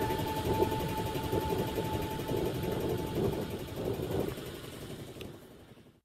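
A motor running steadily with a rough low rumble, along with a steady thin whine that stops about two and a half seconds in; the sound fades out to silence near the end.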